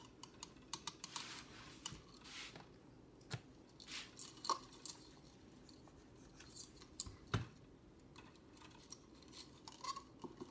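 Quiet handling noise: scattered light clicks and taps, a few louder ones about a third of the way in and again past the middle.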